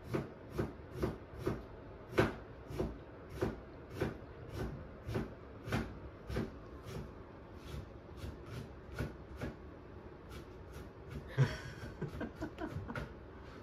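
A hand rhythmically stroking and patting a cat's fur, a soft brushing rustle about two to three times a second. The strokes become fainter and less regular in the second half, with one brief louder rustle near the end.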